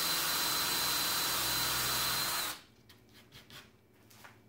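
Craftsman cordless drill with a countersink bit running at steady speed, boring and countersinking a pilot hole in a pine board, with a steady high whine; it stops about two and a half seconds in.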